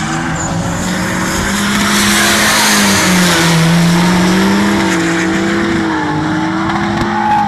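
Two drift cars sliding in tandem, their engines held at high revs with the pitch rising and falling, and the tyres screeching as they spin and smoke. The sound is loudest around the middle.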